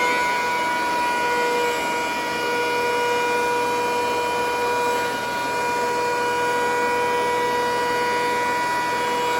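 DeWalt DW735X thickness planer running, a steady high-pitched whine over a noisy rush.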